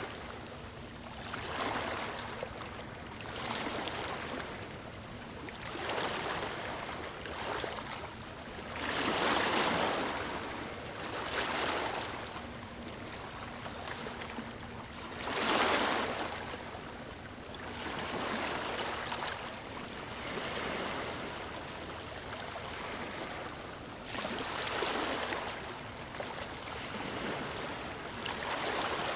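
Ocean surf breaking and washing onto a beach, rising and falling every couple of seconds. The biggest breaks come about nine and fifteen seconds in.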